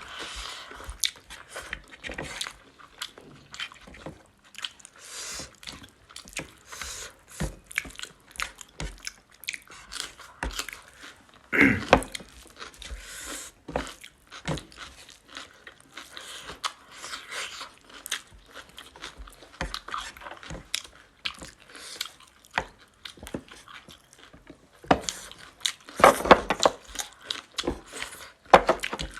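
Close-up eating sounds of pork curry and rice: irregular wet chewing, smacking and crunching, with a few louder bursts about twelve seconds in and again near the end.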